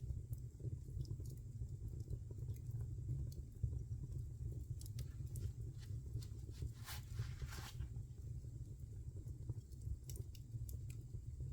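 Fire burning in a fireplace, crackling with scattered sharp pops over a steady low rumble. A brief hissing flare comes about seven seconds in.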